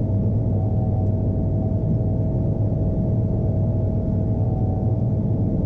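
John Deere T670i combine harvester running steadily on the road, a constant low engine drone with a thin steady whine above it, heard from the cab.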